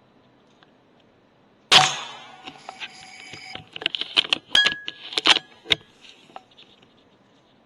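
An air rifle shot about two seconds in, followed by a few seconds of irregular clicks and rattles.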